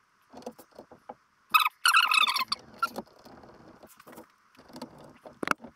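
Small screwdriver driving screws into a laptop's bottom case: scattered light clicks and scrapes, with a brief high squeak about one and a half seconds in, the loudest sound in the stretch.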